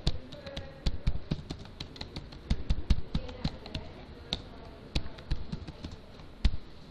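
Typing on a computer keyboard: quick, irregular keystroke clicks in short runs with brief pauses.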